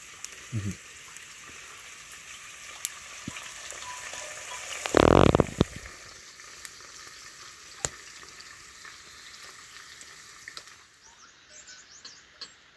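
A steady crackling hiss with a few sharp clicks, and one short loud burst about five seconds in.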